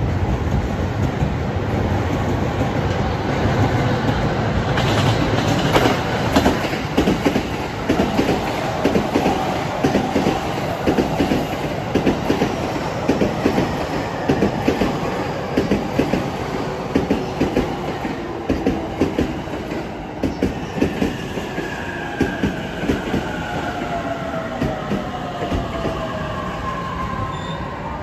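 E233 series 3000 electric train coming into the station at speed. Its wheels clack over the rail joints and points in a quick, dense rhythm over a steady rumble, and over the last third several tones glide steadily downward as the train slows.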